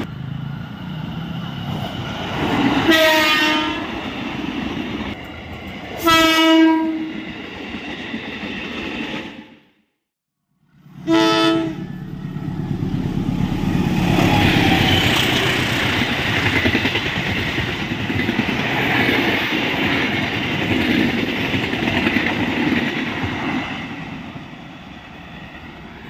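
CC 201 diesel-electric locomotive horn giving three short blasts as the train approaches, with the sound dropping out for about a second before the third. The locomotive and its passenger coaches then pass at speed close by with a loud, steady rumble of engine and wheels on rail, fading near the end.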